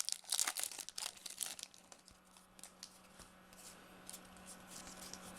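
Foil wrapper of a baseball card pack torn open and crinkled for about the first second and a half, then fainter rustling and clicks as the cards are handled.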